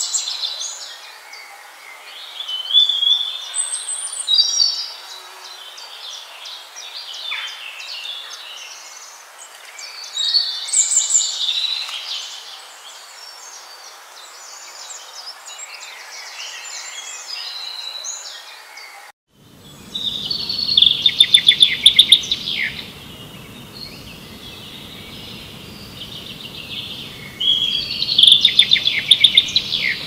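Several small birds singing and chirping with short, varied high notes. About 19 seconds in the sound cuts out for a moment and resumes over a low steady background noise, with two loud, rapid trills.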